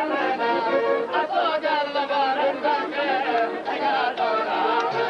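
Live Greek folk music: a man singing in a wavering, ornamented style, with a large double-headed drum beating along.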